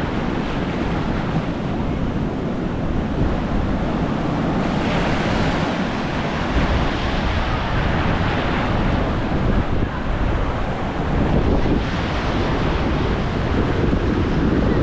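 Ocean surf washing onto a sandy beach, with wind buffeting the microphone in a low rumble.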